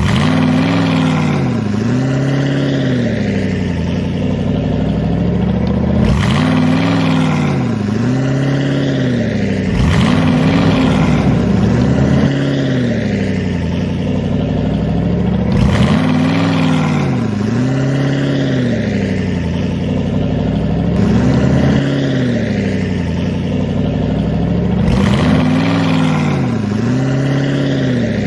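Excavator engine running under changing load, its pitch rising and falling over and over about every second or two. A few sharp knocks or breaks come every four to six seconds.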